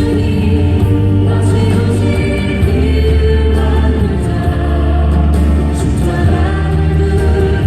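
A choir singing a Christian hymn over instrumental accompaniment, with held bass notes that change pitch about two and a half seconds in.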